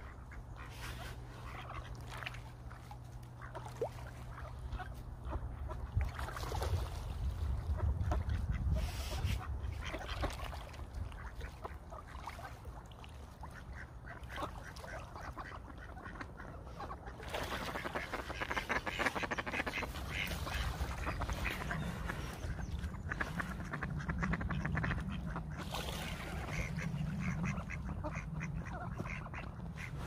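Ducks quacking among other waterfowl calls, busier in the second half, over a steady low rumble.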